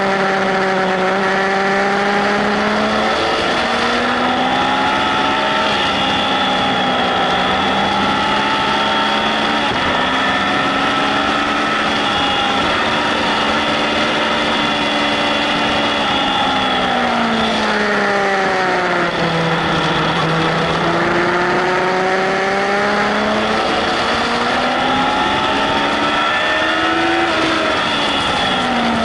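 Yamaha Fazer 1000 inline-four motorcycle engine at speed on track, its revs rising and falling in long sweeps as the rider drives out of corners and rolls off into them, with the deepest drop in pitch a little past halfway and another fall near the end. Steady wind rush over the camera runs under it.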